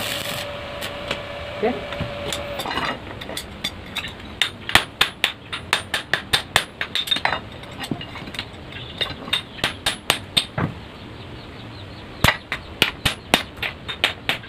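Electric arc welder crackling with a steady hum for the first few seconds. Then a hand hammer strikes the freshly welded steel parts again and again, about two or three blows a second, pausing for about a second near the end before going on.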